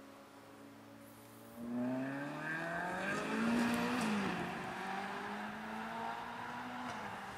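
Supercar engine running steadily, then revving hard about one and a half seconds in; the pitch climbs to a peak a couple of seconds later, drops back and holds at a steady, lower note.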